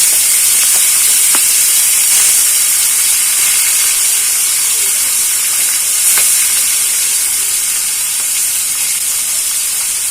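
Small parshe (mullet) fish, rubbed with salt and turmeric, sizzling loudly as they fry in hot oil in a kadai. There is a steady hiss with occasional crackles, and it eases a little near the end.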